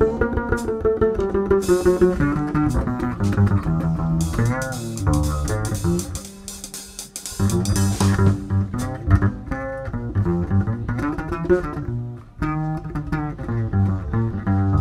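Instrumental swing jazz played on strings with a double bass underneath. It drops quieter about six seconds in, then picks up again.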